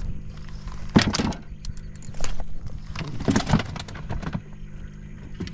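A cast and retrieve with a baitcasting rod and reel: a sharp knock about a second in, then several bouts of clatter from the reel and gear, over a steady low hum.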